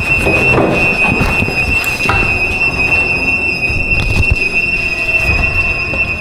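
Building alarm sounding a loud, steady, high-pitched electronic tone, with rustling and knocks of movement underneath.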